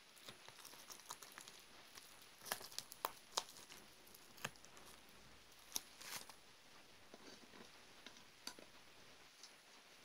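Tweezers and fingertips picking and pressing at green gel blobs under thin plastic film on a towel, giving faint scattered crinkling clicks and small squishes. A quick cluster of sharper clicks comes a little over two seconds in.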